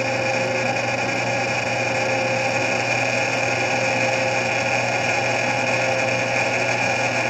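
Tsugami lathe running with its power feed engaged while a cut knurling tool's wheels cut a diamond knurl into a steel bar. The spindle, feed and cut make a steady hum with a steady high whine, unchanging throughout.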